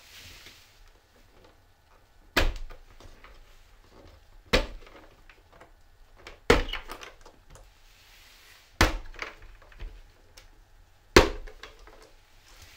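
Five sharp knocks of hard objects, about two seconds apart, each ringing briefly, with smaller clicks and rustling handling noise between them.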